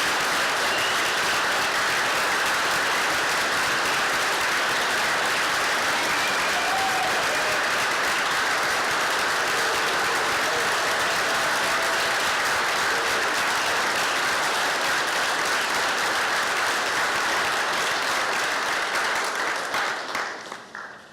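A congregation applauding, steady and sustained, the clapping dying away near the end.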